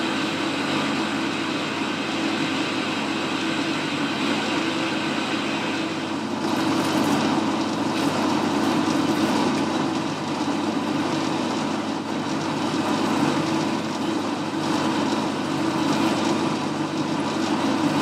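Boxford lathe running with a cutting tool taking a cut on a spinning metal workpiece. The cutting noise grows louder and rougher about six seconds in.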